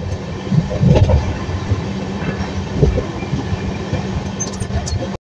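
New Delhi–Howrah Rajdhani Express running at speed, with a steady rumble of wheels on rails and a hum under it. A few heavier knocks come about half a second, one second, two seconds and three seconds in.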